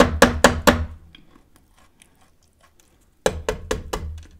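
A stale, hard Church's Chicken biscuit knocked repeatedly against a serving tray, about four sharp knocks a second. There is one short run at the start and a second run after about two seconds of quiet. The hard knocks show the biscuit is old and hard.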